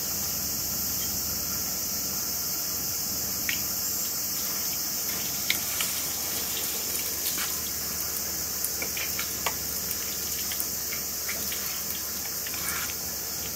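Steady high-pitched hiss of an insect chorus, with a few faint light clicks scattered through it.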